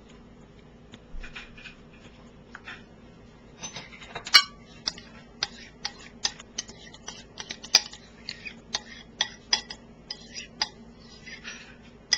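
A metal spoon clinks and scrapes against a bowl and a glass baking dish while a thick cream-cheese sauce is scooped out and spread. It makes a run of irregular sharp clinks that starts about a second in.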